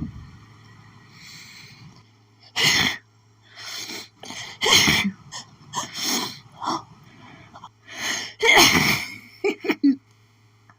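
A woman's pollen-allergy sneezing fit: a run of strong sneezes with gasping breaths in between, the loudest about a quarter, halfway and three quarters of the way through, then a few short quick ones near the end.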